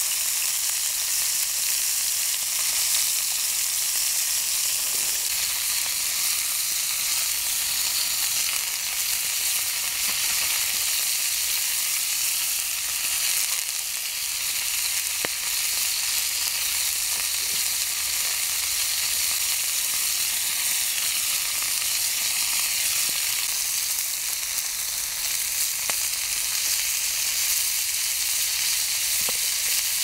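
Wolffish steak and garlic cloves sizzling in oil in a pan over a campfire: a steady frying hiss with a few faint pops.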